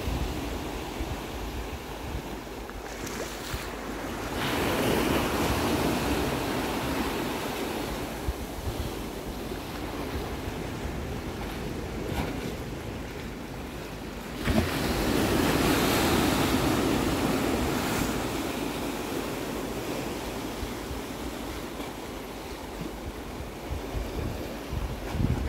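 Sea waves washing in along a boulder-strewn shore, swelling louder twice, about four and a half and fourteen and a half seconds in, with wind rumbling on the microphone.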